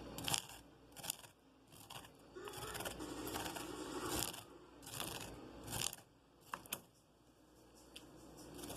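A knife blade scraping down a cob of fresh corn in repeated strokes, about one a second, pressing out the kernels' milky cream.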